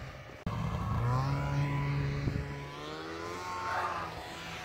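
Snowmobile engine running as it goes by, its pitch dipping slightly and then holding steady. The sound comes in abruptly about half a second in.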